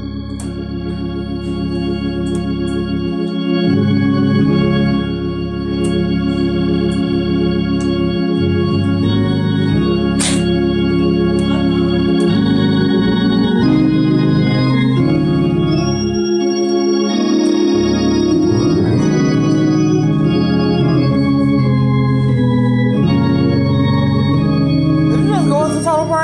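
Hammond-style two-manual organ playing sustained chords over a moving bass line, with one sharp click about ten seconds in.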